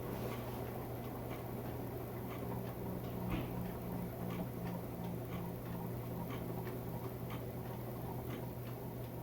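Heritage hugger ceiling fan running at medium speed: a steady motor hum with a light, regular ticking, about two to three ticks a second.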